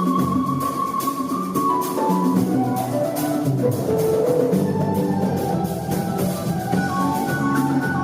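Band music with a drum kit keeping a steady beat under sustained melodic instrument lines, without singing.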